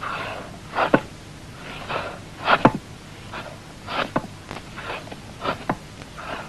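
A knife whittling a piece of wood: repeated short scraping cuts, each ending in a sharp click, roughly one a second.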